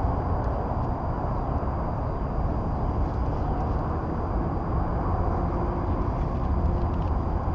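Steady low outdoor rumble with no distinct event, and a faint steady high-pitched whine above it.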